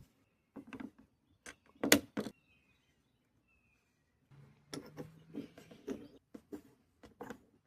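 Scattered sharp clicks and knocks of pressure-washer parts being handled: a few in the first couple of seconds, then a busier run starting about four and a half seconds in, with a faint low hum under its start.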